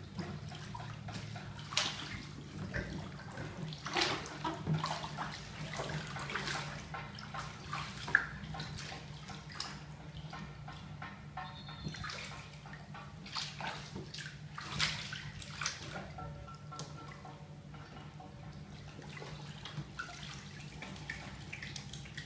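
Bathwater sloshing and splashing in a full tub as a person moves about in it, in irregular bursts with quieter stretches, over a steady low hum.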